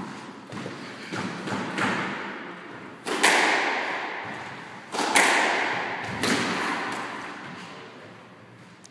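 Squash rally: the ball is struck by rackets and hits the court walls, each sharp hit ringing in the court's echo. The two loudest hits come about three and five seconds in, with lighter hits and taps around them.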